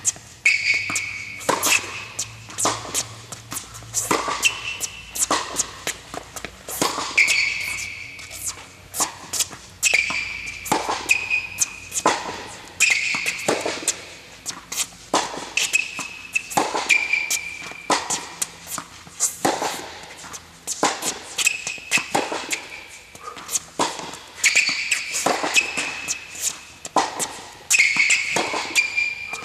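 Tennis rally on an indoor hard court: sharp racket strikes and ball bounces about once a second, echoing in the hall, with short high squeaks between them.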